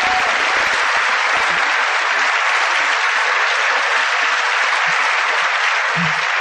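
Audience applauding steadily, a dense unbroken clapping from a large crowd.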